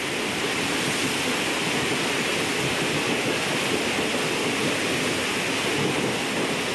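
Passenger train running through floodwater over the tracks, with a steady rush of water spray thrown up by the passing coaches.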